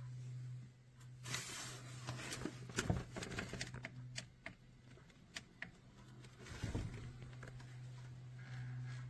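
Objects being handled at close range: a series of light clicks and taps with short bursts of rustling, over a steady low hum.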